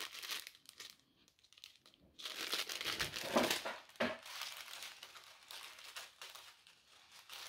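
Small clear plastic bags of diamond-painting rhinestones crinkling as they are handled, with a short lull about a second in. Louder crinkling follows, and a light knock comes near four seconds in.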